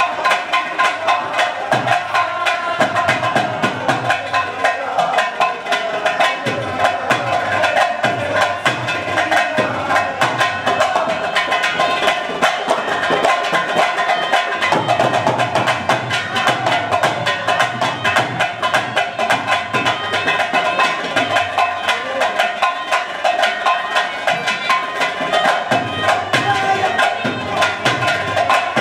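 Lively instrumental folk dance music: a harmonium holding a melody over a fast, steady beat on a hand drum.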